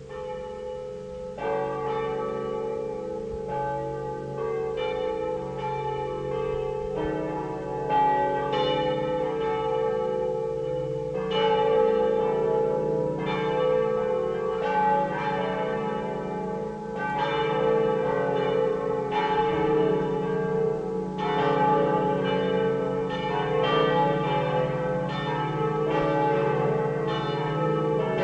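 Swinging church bells from a five-bell peal cast by Pruneri of Grosio, ringing stroke after stroke. The strokes start about a second and a half in over the hum of a bell still sounding, then come closer together and grow louder.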